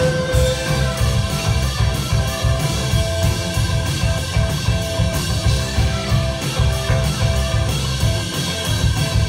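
Live rock band playing an instrumental passage of the song: electric guitars, keyboard, bass and drum kit, with a high held note repeated over a steady drum beat.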